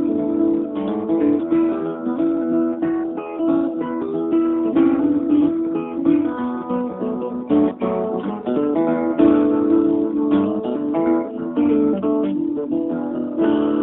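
DVD menu theme music played on acoustic guitar, with picked notes and strummed chords.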